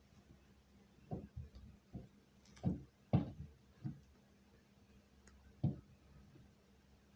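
Irregular dull thumps and knocks heard through the ceiling from the apartment upstairs: about seven in five seconds, the loudest near the middle. A faint steady hum sits underneath.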